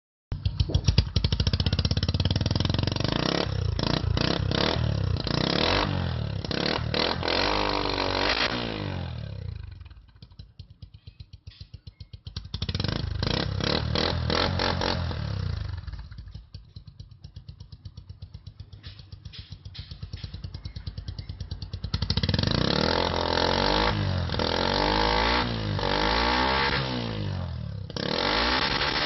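Honda TMX motorcycle's single-cylinder four-stroke engine on its stock exhaust, revved and held up for several seconds, then falling back to idle. It is revved again briefly near the middle, idles again, and over the last several seconds is revved up and down repeatedly.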